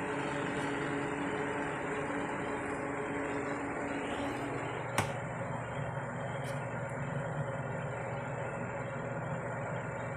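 Steady mechanical hum with a low droning pitch, shifting slightly about four seconds in, with a single sharp click about five seconds in.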